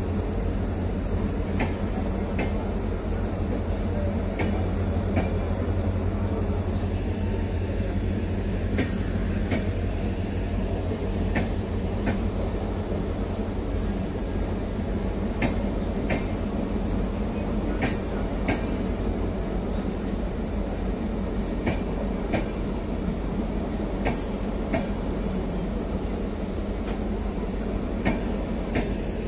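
ICF sleeper coaches of an Indian Railways express rolling slowly past the platform: a steady low rumble, with sharp wheel clicks in pairs every few seconds as each bogie's two axles cross a rail joint.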